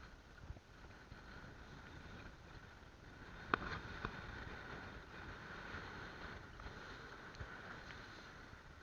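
Steady drone of a fishing boat at sea, its motor and the water running under a constant hiss. A sharp knock comes about three and a half seconds in, and a lighter one half a second later.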